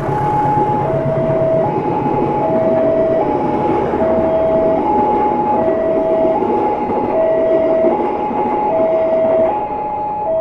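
Passenger train carriages rolling past a level crossing, with the crossing's warning alarm sounding a two-tone chime that alternates low and high, each tone held just under a second. The rolling noise fades near the end as the last carriage goes by.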